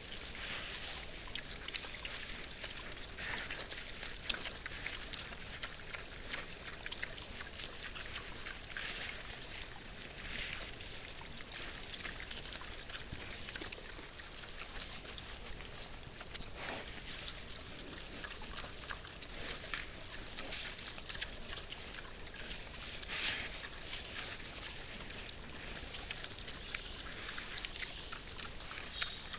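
Wild boars feeding: steady rustling and crunching, full of small crackling clicks, as they root and chew.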